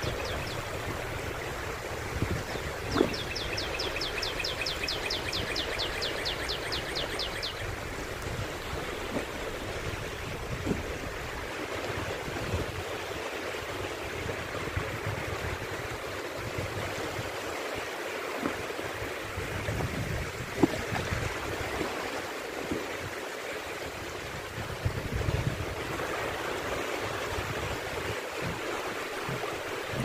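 Small shallow waves washing over a flat beach, water lapping and sloshing steadily. About three seconds in, a rapid high trill runs for about four seconds.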